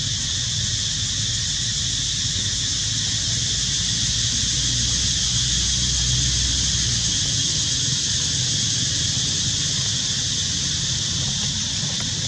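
Steady high-pitched insect chorus, even and unbroken, over a low wind rumble on the microphone.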